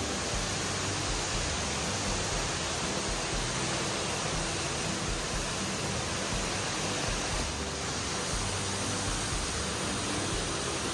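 Indoor waterfall: a steady, even rush of falling water that does not change.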